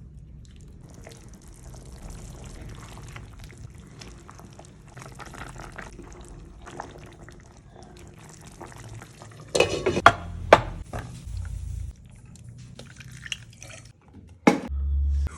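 Cooking in a pan: liquid poured and stirred, with a few sharp knocks about ten seconds in and again near the end.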